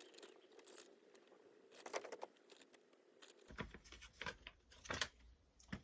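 Paper rustling and crinkling in short, scattered bursts with a few light clicks: an instruction leaflet being handled and unfolded.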